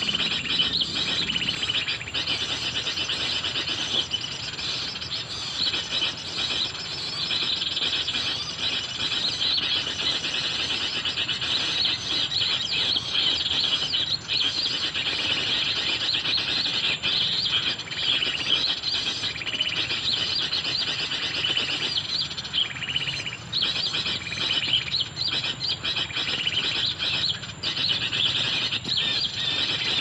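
Wild birds chirping continuously, many short overlapping calls, over a thin steady high-pitched tone.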